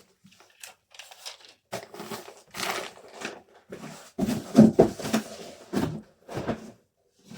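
Packaging materials being handled while an order is packed: irregular rustling and crinkling, with a run of louder handling sounds in the second half.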